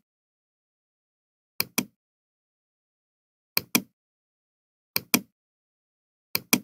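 Computer mouse clicking: four pairs of sharp clicks, the two clicks of each pair about a fifth of a second apart, with the pairs coming every second and a half to two seconds and silence in between.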